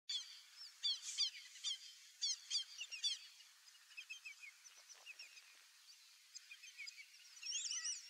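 White-backed stilts calling: quick series of short, sharp yapping notes, dense and loud in the first three seconds, sparser and fainter in the middle, and rising again near the end.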